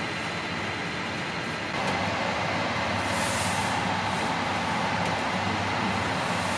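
A train approaching, a steady rumble that grows louder about two seconds in and then holds, with a brief hiss about three seconds in.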